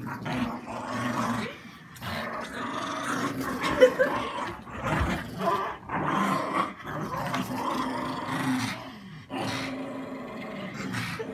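Pugs growling in long, rough stretches while tugging on a rope toy, broken by a few short pauses.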